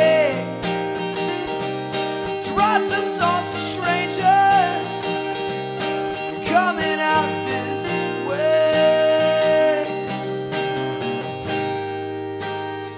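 Strummed acoustic guitar with a man singing long, held notes over it. The playing grows quieter near the end.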